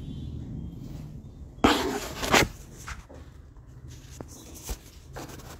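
Handling noise on a phone's microphone as the phone is moved: a loud rubbing, scraping burst lasting under a second, about a second and a half in, followed by a couple of faint knocks, over a low steady hum.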